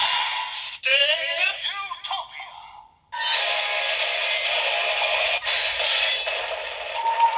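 Electronic sound effects from a Kamen Rider Zero-One DX transformation belt toy: a synthesized voice call with pitch-bent vocal effects, then after a short break a steady looping electronic standby tune.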